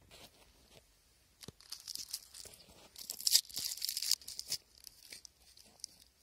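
Sweet wrappers crinkling and rustling as they are handled, in irregular dry crackles that are densest about three to four seconds in.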